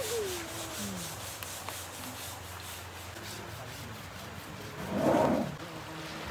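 Repeated rubbing strokes of a kept elephant's hide being scrubbed during its bath, with a louder rush of noise about five seconds in.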